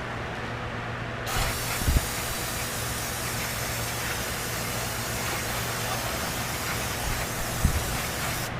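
Steady low running hum of the 2005 Chrysler Town & Country minivan, heard from inside the cabin, with a loud even hiss that comes in about a second in and cuts off just before the end, and a few faint knocks.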